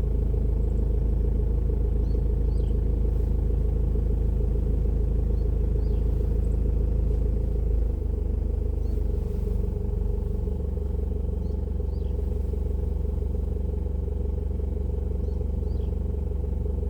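A steady low drone that shifts slightly about eight seconds in, with a few faint, brief high chirps now and then.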